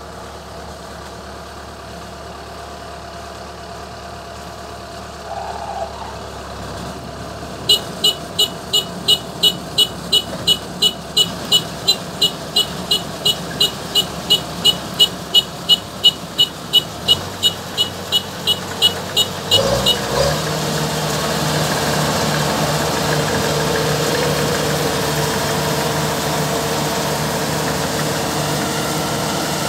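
Kubota DC-105X combine harvester's diesel engine running steadily. About eight seconds in, a warning beeper starts sounding about twice a second and keeps on for roughly twelve seconds. As it stops, the engine is throttled up to a louder, higher working speed.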